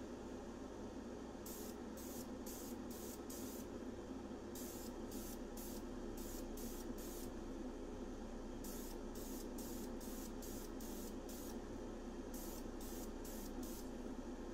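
Krylon aerosol spray paint can hissing in rapid short squirts, about two dozen in four runs, as a light coat of paint goes on. A steady low hum runs underneath.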